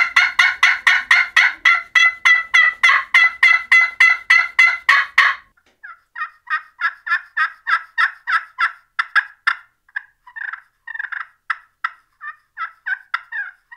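Turkey call imitating a hen: a fast, even run of short, sharp notes for about five seconds, then after a brief break a slower, more uneven series of notes.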